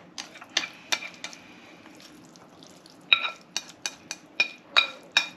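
Wooden chopsticks clicking and scraping against a coated frying pan while stirring spaghetti, then a quick run of louder, ringing clinks from about three seconds in as the noodles are pushed from the tilted pan onto a ceramic plate.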